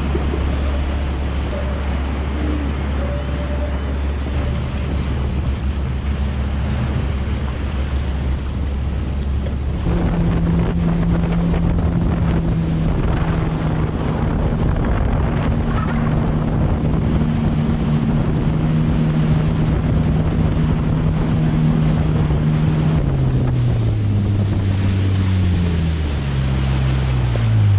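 Yamaha SHO Cruiser personal watercraft's supercharged 1.8-litre engine running under way, with wind on the microphone and water rushing past. The engine note changes about ten seconds in, then falls steadily over the last few seconds as the craft slows down.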